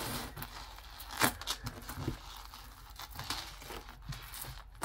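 Costume jewelry handled on a tabletop: metal chains and a rhinestone necklace rustling and clicking against each other as they are picked up, with one sharp click about a second in.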